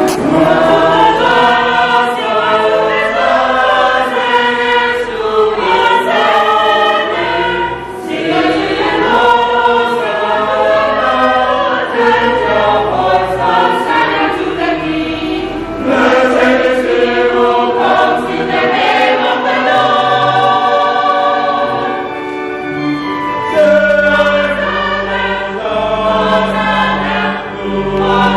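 A mixed church choir of men and women singing a hymn, in long phrases with short breaks for breath every several seconds.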